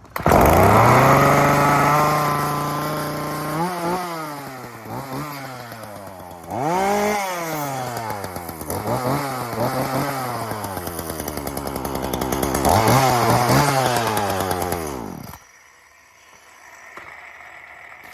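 Ryobi 16-inch two-stroke gas chainsaw, run without its chain, catching on a pull and running loud. It is revved up and down with the throttle about six times, then stops about fifteen seconds in.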